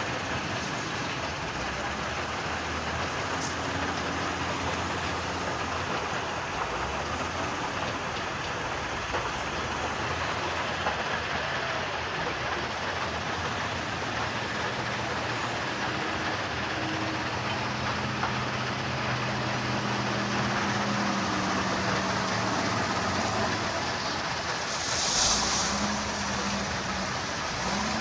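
Heavy diesel machinery running steadily, a low engine drone under a rough mechanical rumble, with a short hiss about 25 seconds in.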